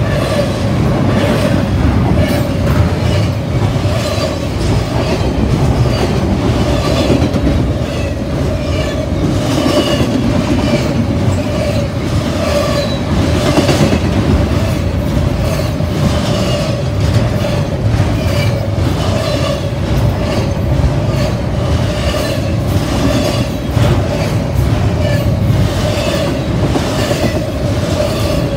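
Double-stack intermodal container cars rolling past at close range: a steady rumble of steel wheels on rail with repeated clicks as the wheels cross rail joints, and a steady high ringing tone over it.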